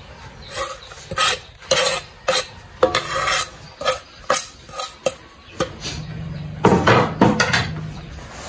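A spoon clinking and scraping against a mixing bowl in short, irregular strokes, about a dozen of them, while sliced squash is stirred and seasoned.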